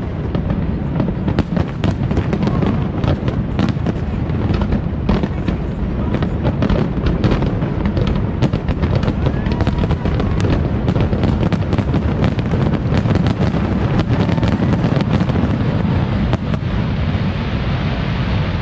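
Aerial fireworks display going off in a dense barrage: rapid bangs and crackling over a continuous low rumble, thinning out near the end.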